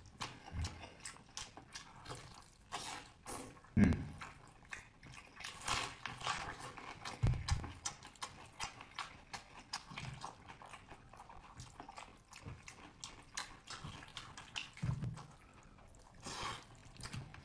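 Close-miked chewing of soft braised pork belly: wet smacking and sticky mouth clicks, with a few louder low thuds along the way.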